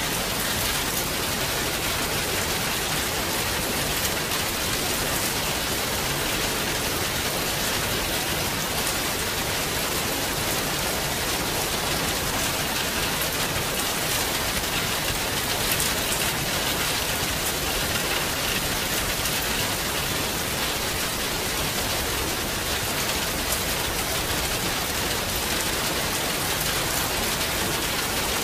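Rain falling steadily, an even hiss of drops on a surface with no pauses or swells.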